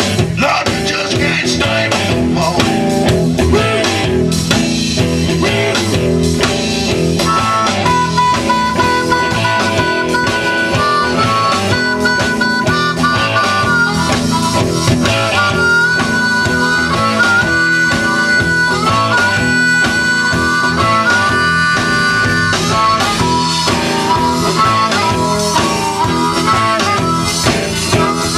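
A live blues-rock band playing an instrumental passage: a harmonica lead over electric guitar, bass guitar and drum kit. The lead comes in with long held notes about eight seconds in.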